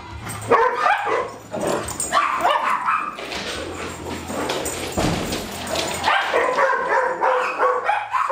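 Dogs barking, yipping and whining in rough play, a quick run of short calls that bend up and down in pitch. A thump about five seconds in.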